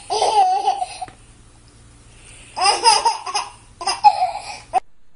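A baby laughing in three bursts, with short pauses between them; the last burst cuts off suddenly near the end.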